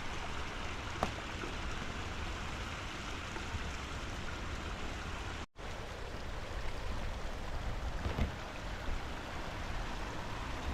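Steady rushing of river water, with a couple of faint knocks. The sound cuts out for an instant about halfway through and then resumes.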